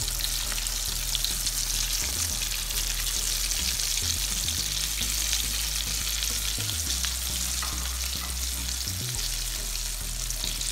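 Egg-coated chicken shami kababs shallow-frying in hot oil in a pan: a steady sizzle with faint tiny crackles.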